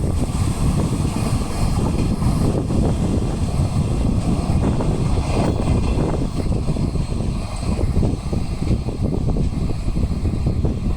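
Train passing close by at a level crossing: a loud, steady rumble of wheels on rail.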